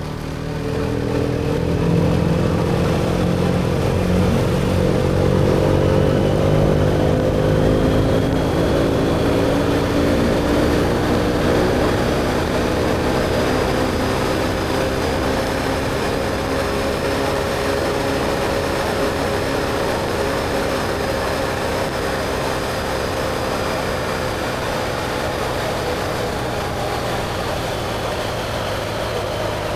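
BMW R1250GSA's boxer-twin engine through an Akrapovic slip-on exhaust, heard from the moving motorcycle over wind and road rush. The engine note climbs in the first two seconds as the bike pulls away, then holds at a steady cruise with the pitch slowly rising and easing off toward the end.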